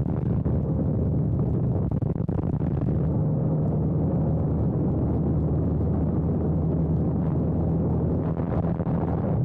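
Biplane in a spin: its engine's steady low drone under a heavy rush of wind buffeting the microphone, with a couple of brief dips in the wind noise.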